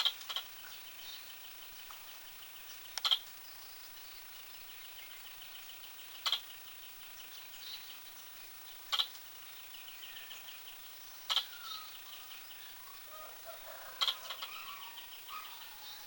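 A squirrel hiccuping: short, sharp hics at fairly even intervals of about two and a half to three seconds, six in all.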